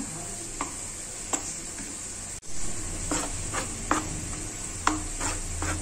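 A spoon stirring thick semolina and gram-flour batter in a bowl, with a steady faint scraping and light taps of the spoon against the bowl every second or so.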